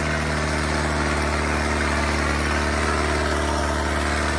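Modified New Holland 5630 tractor's diesel engine running at a steady, even pitch while it pulls a tillage implement through dry, sandy soil.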